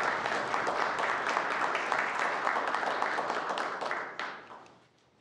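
Applause from a chamber full of people clapping, dying away about four to five seconds in.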